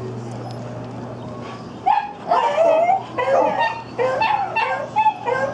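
Dogs barking and yipping in a quick run of short calls starting about two seconds in, over a steady low hum.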